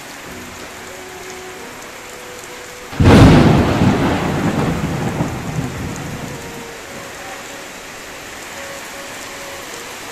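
Heavy rain falling steadily in a kalbaishakhi (nor'wester) storm. About three seconds in, a sudden loud clap of thunder breaks in, then rumbles and dies away over the next few seconds.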